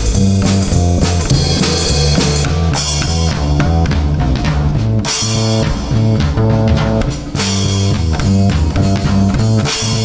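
Band music: a drum kit keeping a steady beat with guitar, and a plucked double bass playing a moving bass line underneath.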